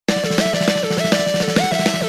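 Intro music: a fast chiptune-style tune with a repeating melody over a steady bass and drum beat.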